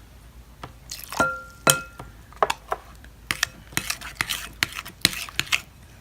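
A spoon clinking and scraping against a container while stirring glue and borax into slime, in irregular sharp clicks, with a couple of short ringing clinks about a second in.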